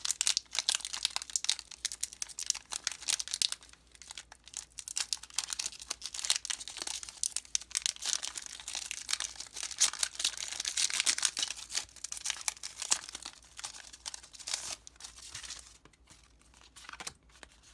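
Foil wrapper of a Pokémon TCG booster pack crinkling and tearing as it is opened by hand. The crackling goes on in a dense stretch and dies down near the end.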